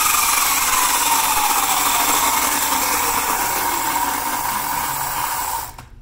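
Electric mini bike's motor spinning the lifted rear wheel through its chain drive: a loud whine over a rushing noise, the whine slowly falling in pitch before it cuts off near the end.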